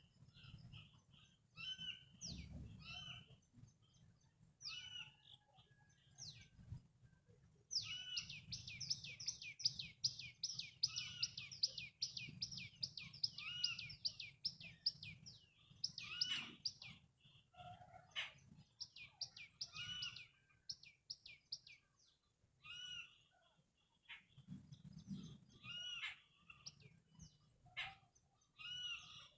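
Several birds calling and chirping, with a rapid run of sharp chirps at about four a second in the middle, over a low rumble of wind.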